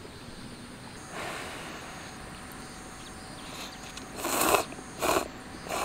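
A person slurping ramen noodles: three short, noisy slurps about four, five and five and a half seconds in, the first the longest, after a softer one about a second in.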